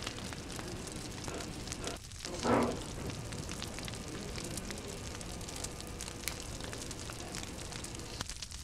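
Open flames burning on a meat serving board, crackling and hissing steadily with scattered small pops, and a brief louder rush of flame about two and a half seconds in.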